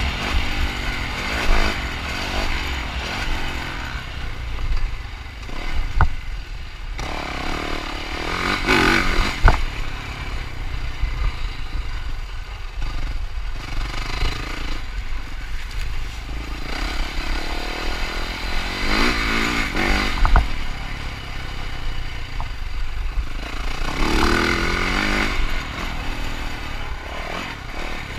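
Yamaha 450 four-stroke dirt bike engine revving up and easing off again and again under off-road race riding, over a steady low rumble. A few sharp knocks cut through.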